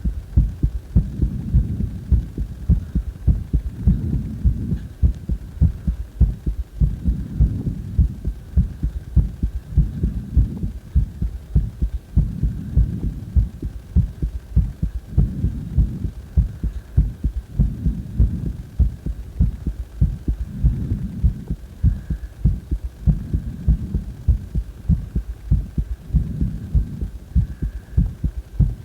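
A person's heartbeat, heard as a quick, regular run of low thumps that swell and ease every few seconds, over a faint steady high tone.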